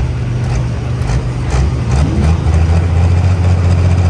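Pro Stock pulling tractor's diesel engine idling after a pass, a steady deep drone that grows louder and settles on a lower note about two seconds in.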